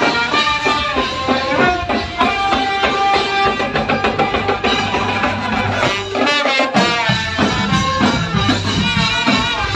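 Thai trae wong brass band playing live: a brass melody over drums.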